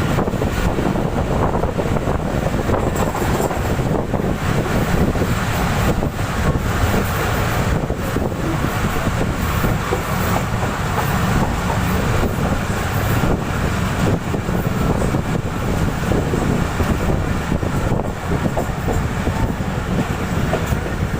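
Passenger train cars rolling past at slow speed, a steady rumble of wheels on rails with scattered sharp clacks as the wheels cross rail joints.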